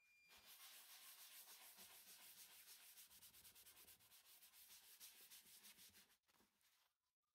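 Paper towel rubbed over the surface of a macrocarpa pine bowl, working shellac into the grain: a faint, steady hissing rub with a fast, even pulse that stops about six seconds in.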